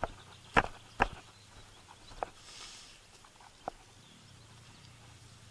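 Footsteps on a grassy pond bank: a few sharp thuds, the two loudest about half a second and a second in, then fainter ones a little after two seconds and near four seconds, with a brief rustle between them.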